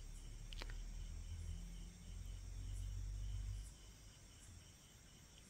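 Faint outdoor ambience: a low rumble for the first three and a half seconds, under a faint, steady insect trill.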